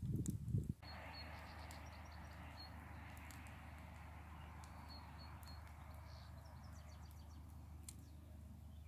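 Small birds chirping in short, repeated high notes over a steady outdoor background hiss. The first second holds a brief, loud, low rumble before the background settles.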